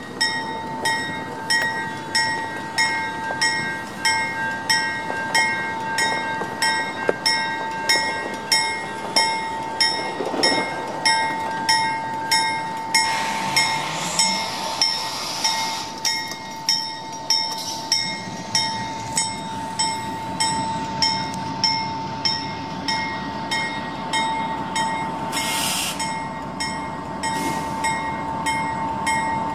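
An approaching CN freight train with its diesel locomotives, while a railroad bell clangs steadily about three strokes every two seconds, its ringing tone held between strokes. The train noise swells about halfway through as the lead locomotive comes into view.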